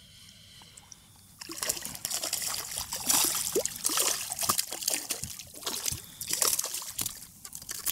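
Water splashing and sloshing as a hooked speckled trout thrashes at the surface while it is landed by hand. The splashing starts about a second and a half in and comes in irregular bursts with sharp little slaps and drips.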